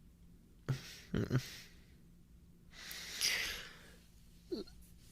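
A man breathing close to the microphone: a few short breaths about a second in, then a long sigh, and a brief murmur falling in pitch near the end.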